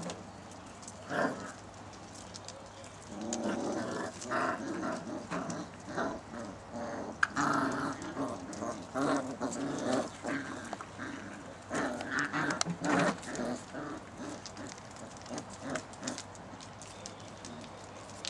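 Six-week-old basset hound puppies play-fighting, giving many short growls and yelps in quick, irregular bursts, busiest from about three seconds in.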